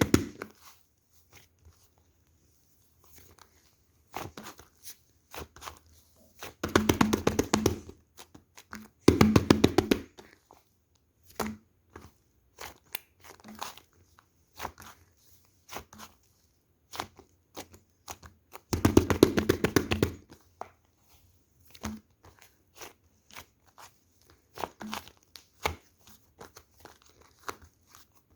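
Bursts of dense crackling clicks, each lasting a second or so, with scattered single clicks and taps between them: a material being squeezed or crumpled by hand.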